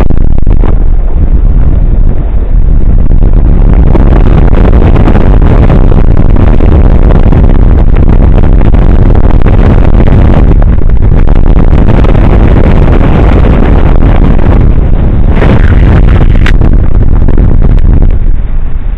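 Heavy wind buffeting the microphone of a camera flying on a paraglider: a dense, loud rush that stays at the limit of the recording level throughout, with a short sharp click near the end.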